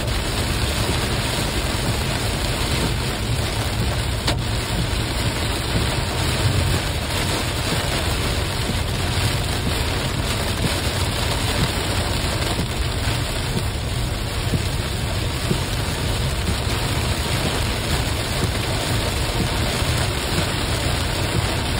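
Heavy downpour falling hard on a moving car's roof and windscreen, heard from inside the cabin, steady and dense, with a low road rumble underneath. One brief click about four seconds in.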